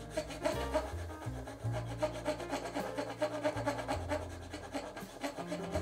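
Hand saw cutting into the end of a wooden board in short, repeated strokes, with background music.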